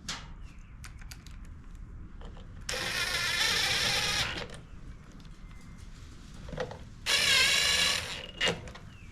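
Power driver with an 8mm (5/16) socket running in two short runs, about 1.5 s and then 1 s, driving the bolts back into the mower engine, with a few light clicks of parts being handled between runs.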